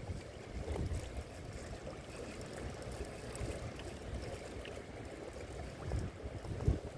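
Strong wind rushing over the microphone mixed with moving water, a steady low rumbling noise, with a few low thumps near the end.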